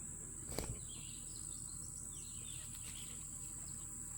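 Steady high-pitched chorus of insects singing outdoors, with a few faint short chirps here and there and a single light click about half a second in.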